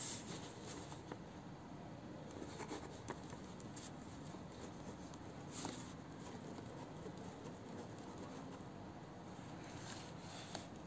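Ballpoint pen writing on paper: faint scratching strokes with a few light taps.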